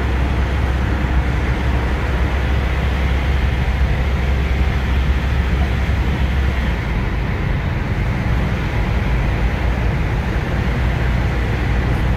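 Car driving through a road tunnel, heard from inside the cabin: steady road and tyre noise with a deep low rumble, which eases a little about seven seconds in.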